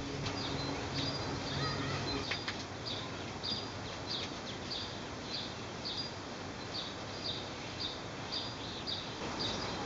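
A small bird chirping over and over, about two short high chirps a second, against steady outdoor background noise, with a low hum in the first couple of seconds.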